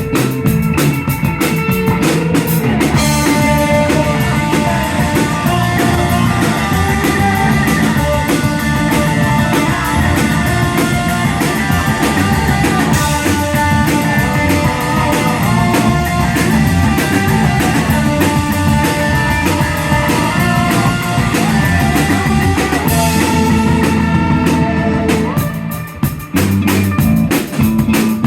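Rock music with electric guitar over a drum kit. Drums alone at the start, guitar entering about three seconds in, and the guitar dropping out again near the end, leaving the drums.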